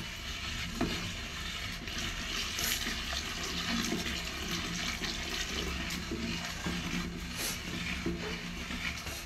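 Coconut milk being poured from a steel bowl into a large wok, running and splashing steadily, then stirred with a wooden paddle.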